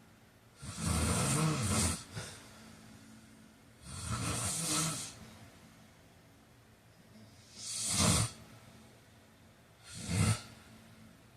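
A man snoring through four breaths, a few seconds apart. The first two are long, rattling snores; the last two are shorter and sharper.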